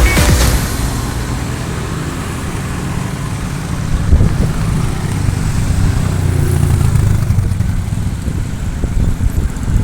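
A motor vehicle's engine running with a steady low hum that swells in the middle, amid road traffic. There is one sharp knock about four seconds in.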